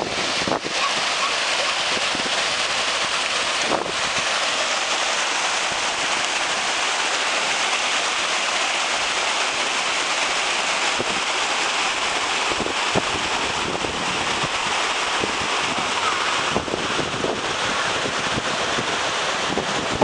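Shallow river rapids rushing over rocks: a steady, even rush of white water.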